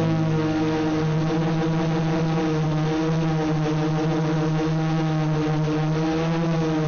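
FPV quadcopter's electric motors and propellers buzzing at a steady pitch that wavers slightly.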